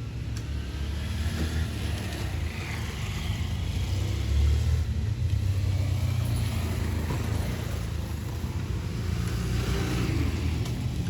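Motor vehicle running with a steady low rumble, slightly louder about four seconds in.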